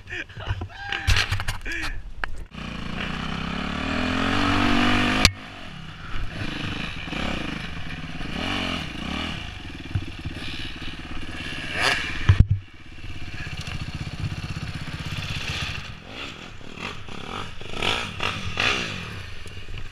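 A 2008 Yamaha YZ450F dirt bike's four-stroke single-cylinder engine revving up, cutting off abruptly about five seconds in, then running unevenly with blips of throttle. Scraping and clattering of the bike in brush and branches runs alongside.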